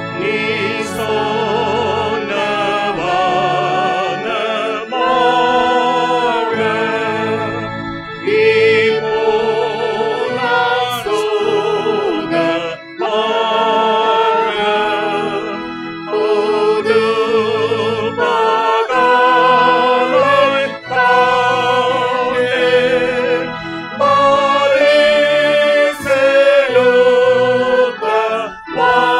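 A Tamil Christian hymn sung over electronic keyboard accompaniment, the voice carrying the melody with a wavering vibrato over sustained organ-like chords. The music breaks off briefly a couple of times between phrases.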